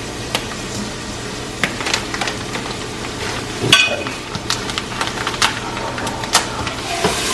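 Scattered light clicks and taps of hands handling a knife and packaging at a stainless steel kitchen sink, over a steady faint hiss and low hum. A short, sharp squeak stands out about halfway through.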